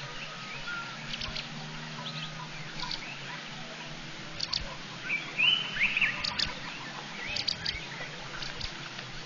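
Birds calling: scattered short, high chirps, with a louder gliding call about five to six seconds in.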